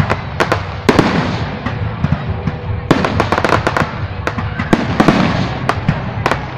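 Aerial fireworks display: shells bursting in quick succession, a dense run of sharp cracks and bangs with crackling between them, thickest about a second in and again from about three seconds in.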